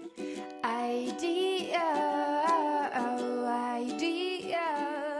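Background music: a plucked ukulele with a singing voice carrying a wavering melody over it, the voice coming in under a second in.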